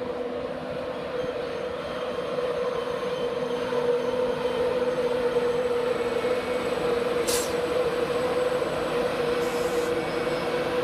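Class 91 electric locomotive and its InterCity 225 coaches rolling slowly into the platform, a steady whine over the rumble of the wheels that grows gradually louder as the train draws near.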